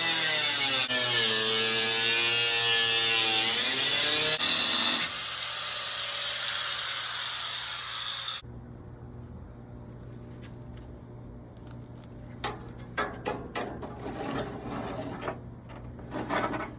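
A high-speed power cutting tool cutting through the rusted sheet-metal windshield channel of a 1968 Impala, its pitch sagging and recovering as it bites, then spinning down with a falling whine and cutting off about eight seconds in. Light metal clinks and knocks follow near the end.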